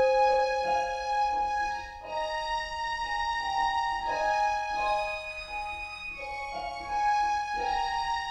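Instrumental interlude of a slow gospel hymn: sustained keyboard notes with a string-like melody, each note held about a second before moving to the next.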